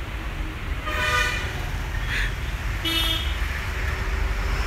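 Steady low traffic rumble with short car horn toots, about a second in and again about three seconds in.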